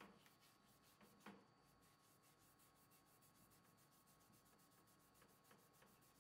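Very faint hand-scrubbing of turned wooden table legs in a bucket of lacquer-thinner and denatured-alcohol solvent, with two light knocks as the legs bump together, one at the start and one about a second later. It is otherwise near silence.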